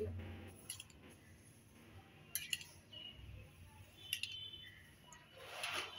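Mustard oil being poured into a kadhai, heard as faint clinks and light taps of metal or glass against the pan, one with a short ring, and a brief rush of noise near the end.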